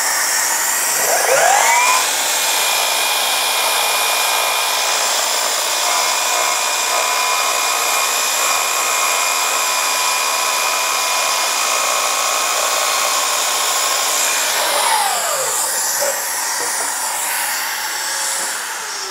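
Sliding compound miter saw motor spinning up about a second in, running while the blade is brought down through a piece of crown molding, then winding down about 15 seconds in. A dust extractor on the saw's hose keeps up a steady hiss under it.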